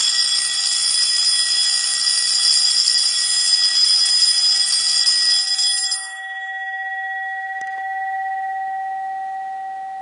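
Electric fire alarm bell starting suddenly and ringing continuously, its hammer rapidly striking the metal gong in a bright, loud metallic clatter-ring. About six seconds in, the hammer stops and the gong rings on in two steady tones that slowly fade.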